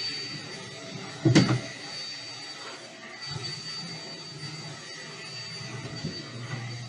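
MEIYOU 18000Pa corded stick vacuum running on carpet with a steady high whine, and one loud thump about a second in.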